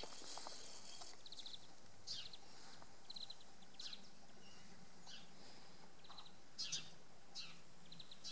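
Small birds chirping faintly: short high chirps, quick trills and brief downward-sweeping calls every second or so, over a steady outdoor hiss.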